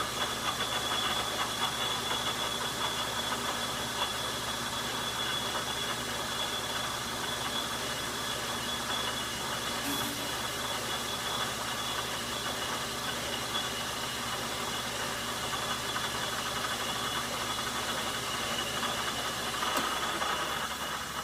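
Metal lathe running steadily under a cut while machining a steel nut, a continuous mechanical whir with a constant high whine.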